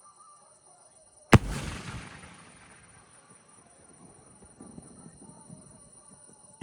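A single loud firework report from a 3.5-inch aerial shell cake about a second in, followed by a rumbling echo that fades over about a second. Another sharp report comes right at the end.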